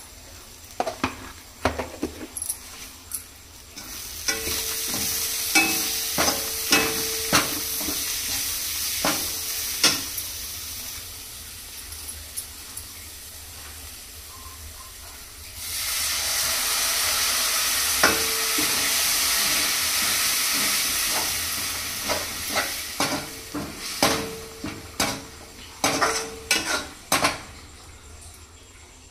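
Food frying in hot oil in a pan, sizzling in two louder surges, with a spatula repeatedly knocking and scraping against the pan as it is stirred.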